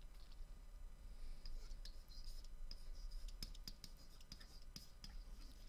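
Stylus tip tapping and scratching faintly against a writing tablet as a word is handwritten: a run of small irregular ticks and scrapes over a steady low hum.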